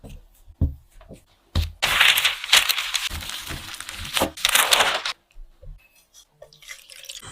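Food-preparation handling sounds: a few sharp knocks, then about three seconds of crinkling and tearing.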